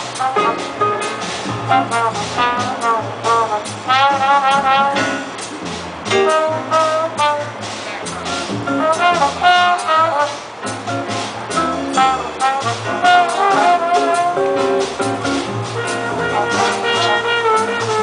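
Live jazz band playing: saxophones and trombones carry melodic lines over a drum kit keeping time, with guitar in the band.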